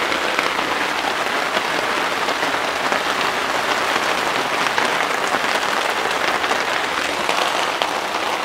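Heavy hail coming down hard: a dense, steady patter of hailstones striking the ground and surroundings.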